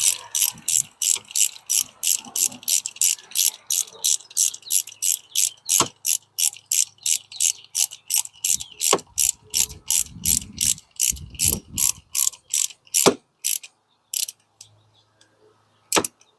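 Ratchet driving a Torx T30 bit, clicking in a steady rhythm of about three clicks a second as it turns down the coil pack hold-down bolt. The clicking stops about 13 seconds in, followed by a few single clicks.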